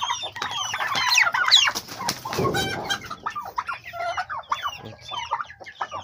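Chickens clucking, with many short high chirping calls overlapping throughout, and a brief rustling noise about halfway through.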